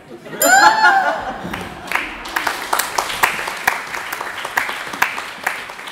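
A loud, high vocal cry about half a second in, its pitch rising then falling, followed from about a second and a half in by a live audience applauding in a theatre.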